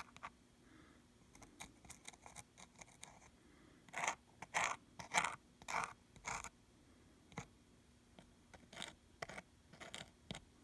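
Fine plastic nozzle of a squeeze bottle of black liner scratching over textured canvas in short strokes, faint, with a quick run of about five scratches near the middle.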